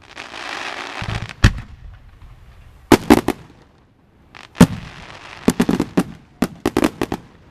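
Aerial firework shells bursting overhead. A hiss in the first second, then a single bang, a quick cluster of three or four, another single bang, and a rapid run of about ten bangs near the end.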